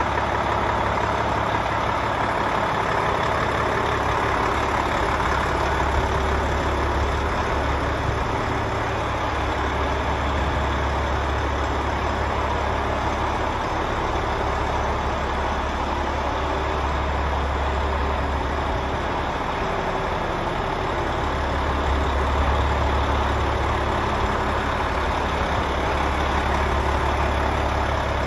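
Volvo FH 460 truck's 13-litre straight-six diesel engine idling steadily, with a deep drone that swells and eases a little.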